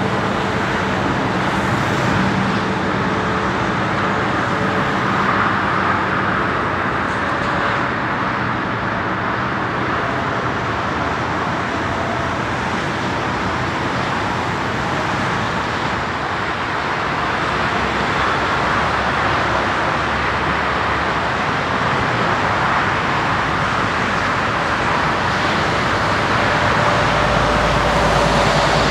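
Steady jet engine noise from an Embraer ERJ-195 touching down and rolling out on the runway. About halfway through it gives way to the steady rumble of a tug towing an Airbus A340-300.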